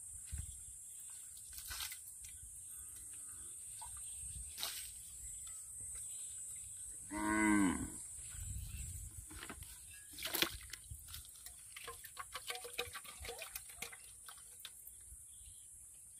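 A cow moos once, a short call about seven seconds in and the loudest sound here. Around it, scattered knocks and splashes come from a steel bowl scooping catfish out of a muddy water-filled hole, the sharpest knock about ten seconds in.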